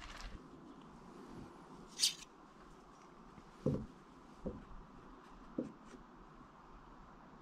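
Quiet handling sounds: a brief sharp rustle about two seconds in, then three soft knocks over the next two seconds, as a metal angle gauge is handled and set against wooden rafters.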